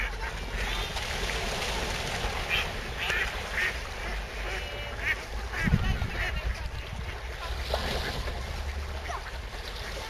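A large flock of wintering waterfowl calling: many short quacks and honks overlapping, over a steady low wind rumble.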